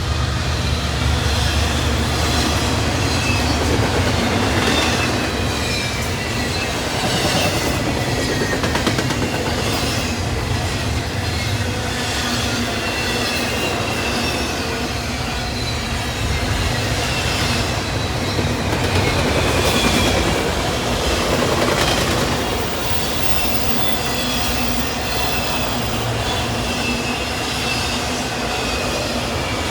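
Intermodal freight train rolling past, its wheels clacking over rail joints, with a thin high-pitched wheel squeal coming and going.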